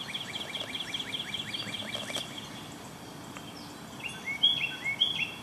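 Wild birds singing: a quick, even run of two-part chirps, about five a second, through the first half, then a few louder, clear notes stepping between two pitches near the end.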